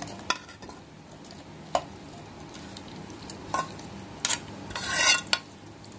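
Steel spoon knocking and scraping against a steel pan and a stainless-steel mixer jar as thick cooked chutney is spooned across: a few sharp metal clinks and a longer scrape about five seconds in.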